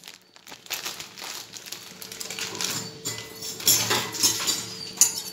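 Raw peanuts dry-roasting in a hot, dry pan: scattered light ticks and crackles, coming more often in the second half, over a steady faint hum.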